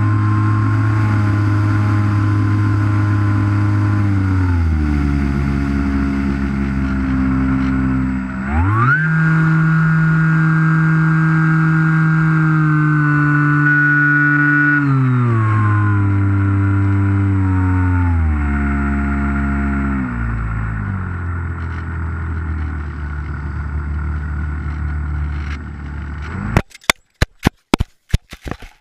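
Electric motor and propeller of a Skywalker model plane whining under throttle. It is eased back a few seconds in, opened up sharply about eight seconds in, then throttled back in steps. Near the end the motor stops and a quick run of sharp knocks follows as the plane comes down in the grass.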